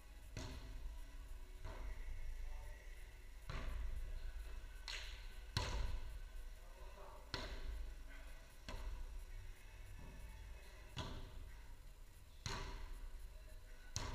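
A footvolley ball being kicked back and forth in a rally: sharp thuds every one to two seconds, echoing in the hall.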